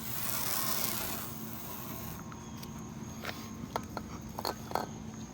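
An aerosol can spraying in one steady hiss that stops about a second in, followed by a few sharp clicks and taps.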